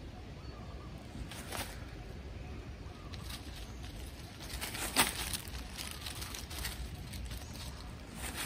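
Hand scratching and rustling in dry leaf litter and soil while digging at the ground, with a few short sharp crackles, the loudest about halfway through, over a low steady background rumble.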